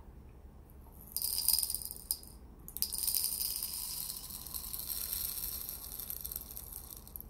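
Whole peppercorns poured from a glass bottle into the clear plastic chamber of an electric gravity pepper mill, rattling against the plastic. The pour starts about a second in, breaks off briefly, then runs on steadily until near the end.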